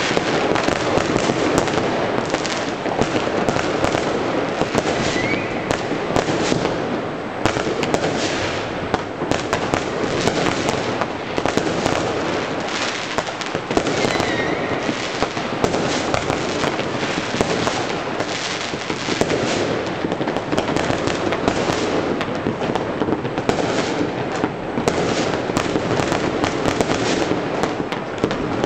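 Many consumer fireworks and firecrackers going off at once across a city: countless overlapping bangs and crackles merging into a steady din, with a short whistle about 5 s in and again about 14 s in.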